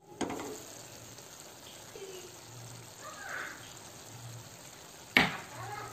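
Beef kidney, onion and tomato sauce simmering and sizzling softly in a frying pan, with a clink as the glass lid comes off just at the start and one sharp knock about five seconds in.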